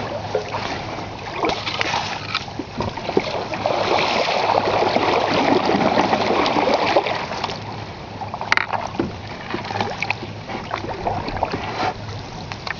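Open canoe moving along a fast river, with small splashes and clicks of water and paddle against the hull. Midway there is a louder stretch of rustling and swishing as the bow pushes through tall reeds, and a sharp knock comes about two-thirds of the way through.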